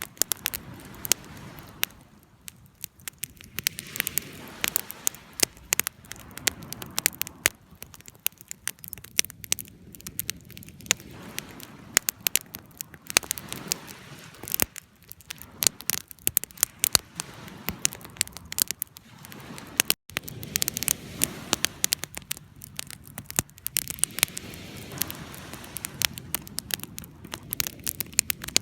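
Fire crackling: a dense, irregular run of sharp pops and snaps over a steady low rush of burning.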